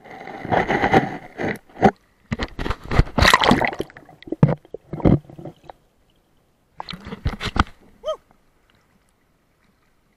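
Water sloshing and gurgling around an action camera held under a creek's surface, in several irregular spells with a short falling bubble-like tone about eight seconds in. The sounds stop before the camera is out of the water.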